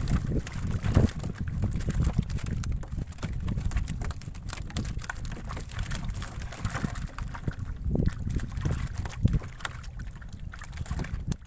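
Wind buffeting the microphone in an uneven low rumble, with scattered light clicks and rattles from a metal-screen fish trap being handled in a wooden canoe.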